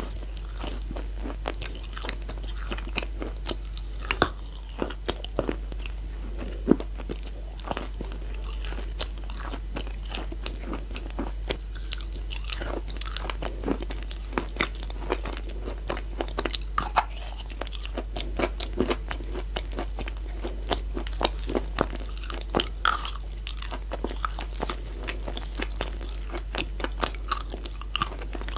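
Close-miked crunching and chewing of edible chalk and clay-chalk pieces, a dense run of crackles with a few sharper crunches as bites are taken.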